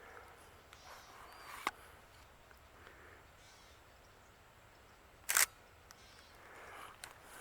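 Camera clicks: a sharp click about a second and a half in, then a louder short clack about five seconds in, over faint outdoor background.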